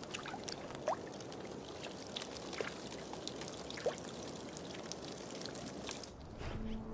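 Shallow water trickling and running, with frequent small clicks and plinking drops. About six seconds in it gives way to a duller, lower sound.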